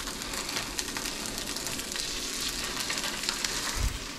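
Seasoned lake trout fillet pieces sizzling and crackling in hot oil in a frying pan, laid in skin side first, with a dull low thump near the end.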